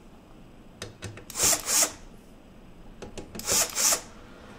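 Gloved hands working a cordless screwdriver among parts inside a desktop PC case: two short rasping rubs, about two seconds apart.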